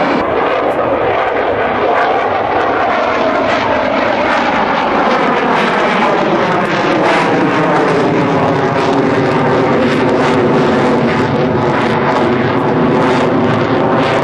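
Twin jet engines of a Sukhoi Su-30 fighter running loud and steady as the aircraft passes, the pitch slowly sinking.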